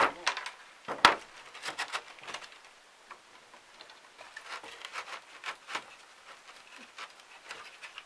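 Irregular knocks, taps and short scrapes from roof repair work, with materials being handled and moved on the roof. The loudest knock comes about a second in.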